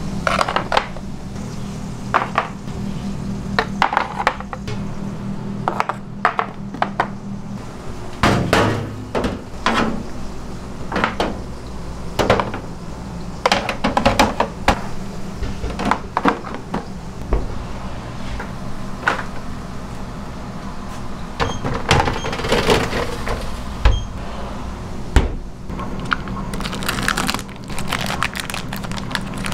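Black steel Detroit-style pizza pans knocking and clattering against each other and a steel counter as they are handled, over a steady low hum. Near the end, plastic packaging crinkles.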